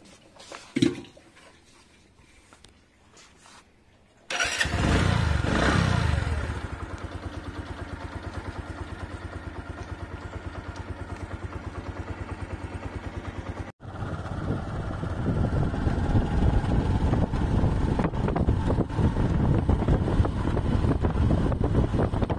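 A sharp click, then about four seconds in a motorcycle engine starts, revs briefly and falls back to a steady, evenly pulsing idle. After a short break the motorcycle is ridden along, its engine running louder under way.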